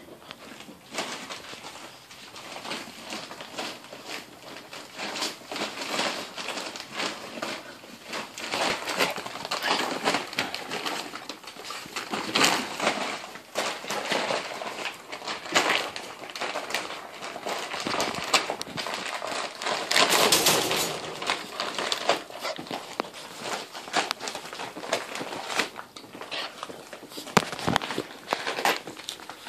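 Pit bull puppies play-fighting, with a near-continuous crackling and rustling broken by sharp scratches and knocks. A longer, louder rustle comes about two-thirds of the way through.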